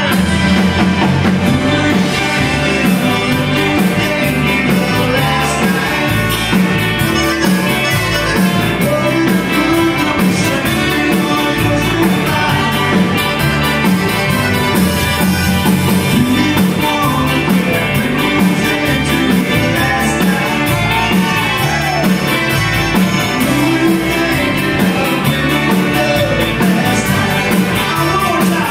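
A live Tex-Mex rock band playing a song on stage, with accordion, electric guitar, keyboard and drum kit.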